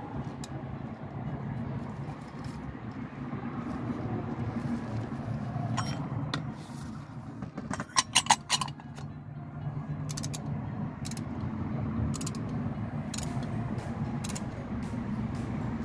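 Sharp metallic clicks from a ratcheting torque wrench tightening a fastener under the car, with a burst of four loud clicks about eight seconds in and single clicks scattered after it, over a steady low hum.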